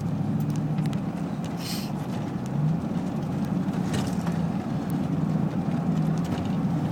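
Chevy Tahoe driving: a steady low engine and road hum heard inside the cabin, with a few brief clicks and a short hiss about two seconds in.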